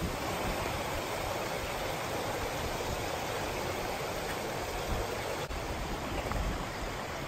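Steady running water of a mountain valley stream, with a faint click about five and a half seconds in.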